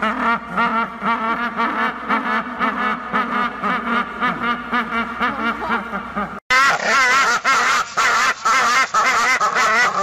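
Rockhopper penguins calling with heads thrown back: a loud, harsh, rapidly pulsing braying, two birds overlapping. The calling breaks off abruptly about six seconds in, then a louder, higher-pitched bout of the same kind of calling follows.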